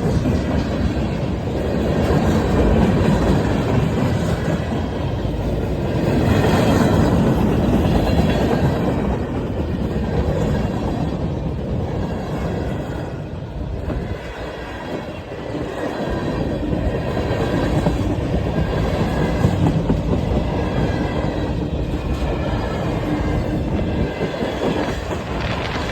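A long freight train passing close by and picking up speed: a steady rumble and clatter of steel wheels on the rails, with a faint high wheel squeal at times.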